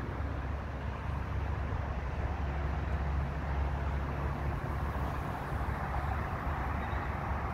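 Strong wind buffeting the phone's microphone: a steady low rumble with a hiss above it, easing a little about six seconds in.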